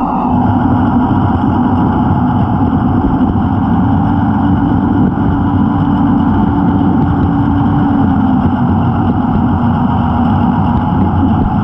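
Spur 0 model locomotive running along the track, heard close up from on board: a steady mechanical drone whose hum rises slightly in pitch partway through and settles back later.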